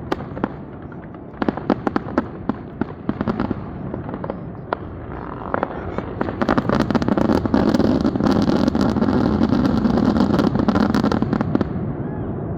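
Fireworks going off: a string of sharp pops and cracks that thickens about halfway through into a dense, continuous barrage, the show's finale, easing off near the end.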